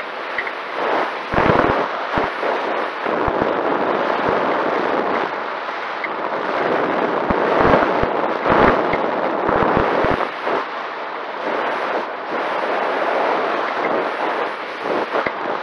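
Wind rushing over a high-power rocket's onboard camera as it falls: a steady rushing noise on the microphone, broken by frequent irregular low buffeting thumps.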